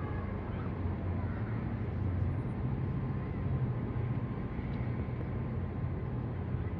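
Steady low rumble of distant engines, even throughout.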